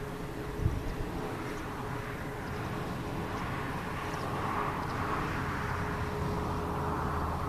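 Nordex N90 wind turbine running, with a steady hum from the nacelle and a whoosh of blade noise that swells and fades over a few seconds. Wind rumbles on the microphone.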